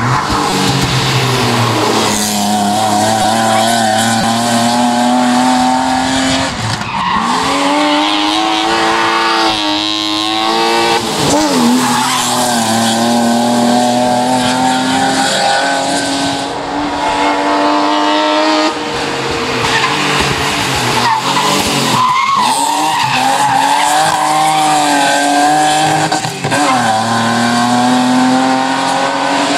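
BMW E30 hillclimb car driven hard through bends. The engine revs climb and drop sharply several times as the driver lifts and changes gear, with tyres squealing as the car slides through the corners.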